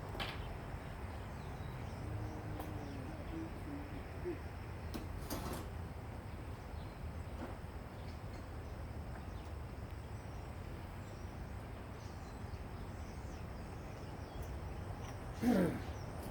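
Steady low outdoor background rumble with a few faint clicks and knocks, and one short louder sound with a falling pitch near the end.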